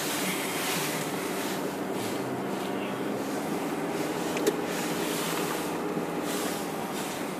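Car driving along at steady speed: an even engine hum with tyre and road noise, and one short click a little past halfway.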